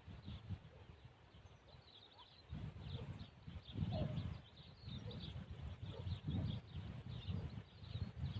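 Small birds chirping, with many short high calls overlapping, over irregular low rumbles on the microphone that swell about four seconds in.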